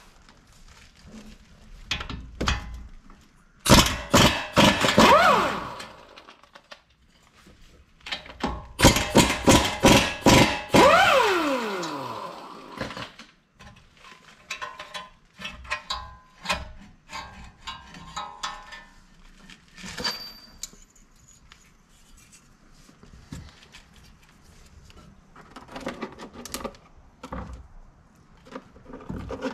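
A cordless impact wrench running in two bursts of about two to three seconds each on the front brake caliper's mounting bolts, its motor spinning down in a falling whine after each burst. Then come scattered metal clinks and knocks as the loosened caliper is handled.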